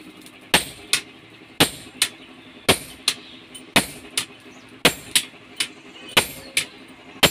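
Sledgehammer blows on a red-hot sword blade on a steel anvil, hand-forging the blade, about one heavy ringing strike a second. Each heavy blow is followed about a third of a second later by a lighter metallic strike.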